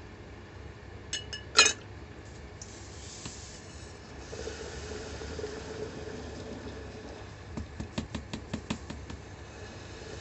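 A small diecast car body dropped into a glass jar of liquid, giving a sharp glassy clink about one and a half seconds in, just after a lighter tap. A quick run of light clicks follows near the end.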